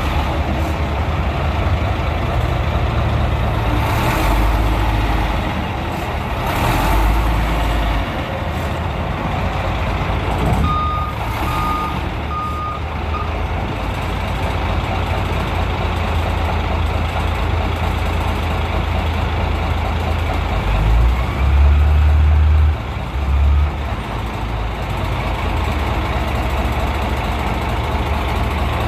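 Caterpillar 627 wheel tractor-scraper running with a steady low rumble that swells loudly a few times. A back-up alarm beeps four times about halfway through.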